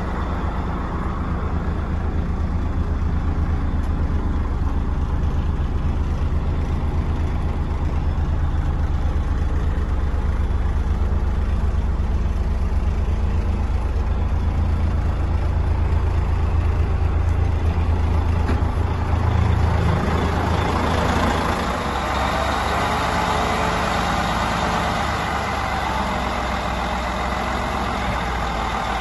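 DAF CF85.410 tipper truck's diesel engine running steadily at idle. About two-thirds of the way through the low hum eases and a brighter hiss comes up alongside it.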